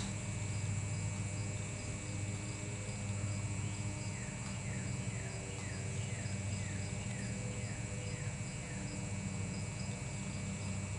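Steady low hum with a cricket chirping faintly and regularly over it; from about four seconds in, a run of about nine short falling chirps, roughly two a second.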